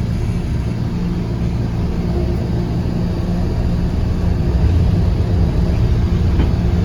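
Steady low rumble of engine and road noise heard from inside a moving vehicle's cabin.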